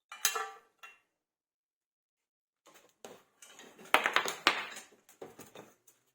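Metal parts clinking and knocking as they are handled: one ringing clink at the start, then a cluster of sharper knocks and rattles in the second half, loudest about four seconds in.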